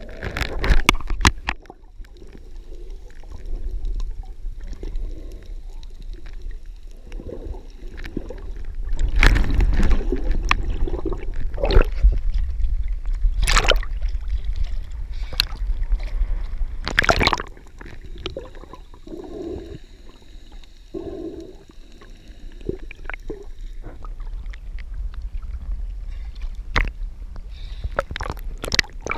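Water sloshing and gurgling against an underwater camera as it dips under and bobs at the surface, with a low rumble and several sharp splashes in the middle stretch, the loudest part.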